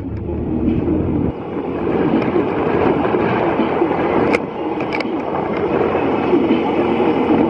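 Wind rush and engine noise from riding a rented motorbike along a road, a steady rumble with two sharp knocks about four and five seconds in.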